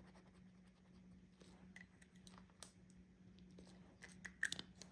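Near silence: faint scratching of a marker colouring on paper over a steady low hum, with a few soft clicks about four seconds in.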